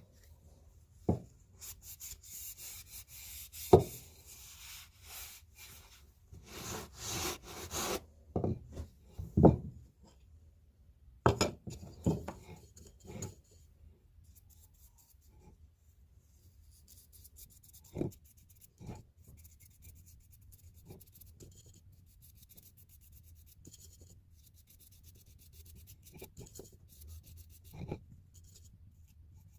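Hand work on a blacksmith's punch: bouts of rubbing or scraping during the first several seconds, with a few sharp knocks among them, then only faint scattered ticks.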